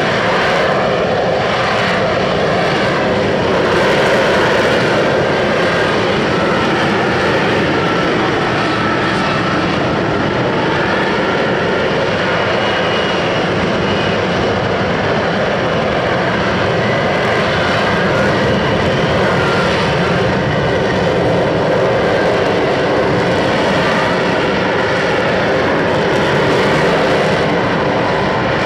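F-35B's F135 jet engine running loud and steady throughout, a dense roar with a faint wavering whine over it.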